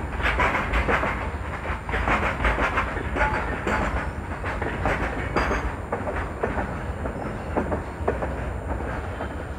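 Freight train of BOXN open wagons rolling past: a steady low rumble with repeated clatter of wheels over rail joints, easing slightly near the end as the last wagons and the brake van go by.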